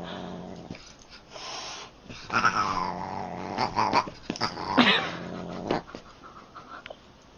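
A Siamese cat and a dog sparring: low growling, then loud yowling cries, one falling in pitch about two and a half seconds in and another near five seconds, amid scuffling.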